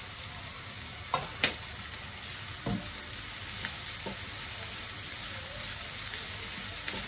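Chopped vegetables (onion, carrot, capsicum and tomato) sizzling steadily in hot oil in a kadhai while being stirred with a silicone spatula. A few short knocks against the pan, the loudest two close together about a second and a half in.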